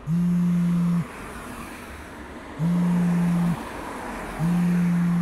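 Mobile phone vibrating with an incoming call: a low, loud buzz about a second long, pulsing three times with gaps of about a second and a half and then about a second.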